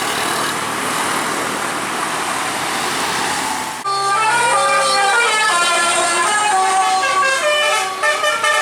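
Steady rushing road noise from traffic, then about four seconds in a bus's multi-tone 'telolet' air horn (basuri horn) cuts in, playing a quick melody of stepped notes.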